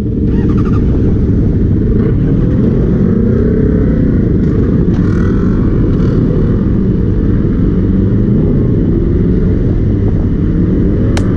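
Sport motorcycles idling in pit lane, the nearest the 2007 Honda CBR600RR's inline-four, with revs rising and falling a little as riders blip their throttles.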